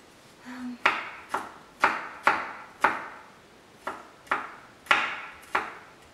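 Kitchen knife slicing garlic on a wooden cutting board: about nine sharp knocks of the blade on the board, unevenly spaced at roughly two a second.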